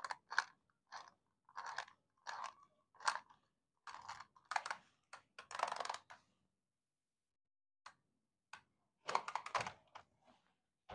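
Faint crinkling and rustling from packaging being handled, in short irregular bursts, with a pause of about two seconds past the middle before another cluster.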